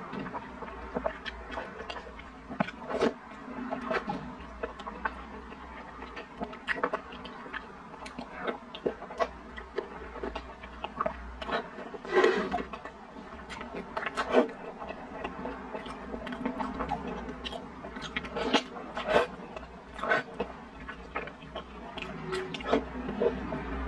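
Close-up eating sounds: wet chewing, smacking and slurping of soft, sticky glutinous rice in brown sugar syrup, in irregular bursts, with occasional sharp clicks and scrapes of a metal spoon in the bowl.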